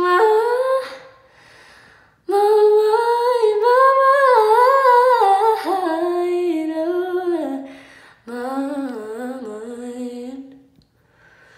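A woman singing unaccompanied: wordless vocal runs that bend up and down, a brief note at the start and then two long phrases with short breaks between them.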